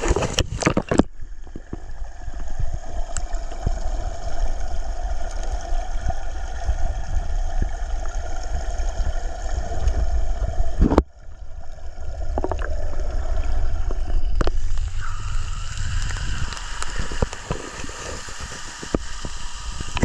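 Waterfall pouring into a rock pool: a steady rush of falling water with a deep rumble, broken by a sudden short drop about eleven seconds in.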